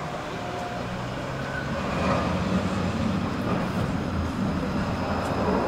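Low-floor city tram approaching along the track, its low running hum growing steadily louder, with street traffic in the background.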